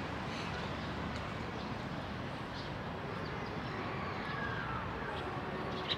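Outdoor city ambience: a steady, even background noise, with faint higher tones drifting through it and a sharp tick at the very end.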